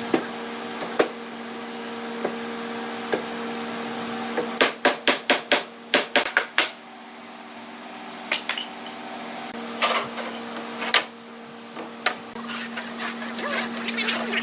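Hammer blows on wood: a quick run of about eight strikes some four seconds in, and scattered single knocks, over a steady machine hum.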